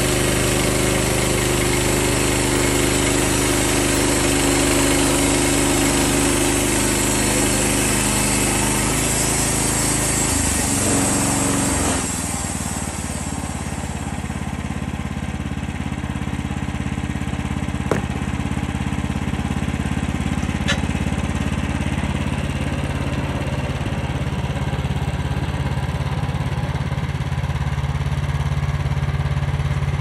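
Wood-Mizer LX55 portable bandsaw mill running at full throttle with a steady hiss as its band blade cuts through a pine log. About twelve seconds in the hiss stops and the engine settles to a lower, steady running note as the cut ends. There are two sharp knocks, around eighteen and twenty seconds in.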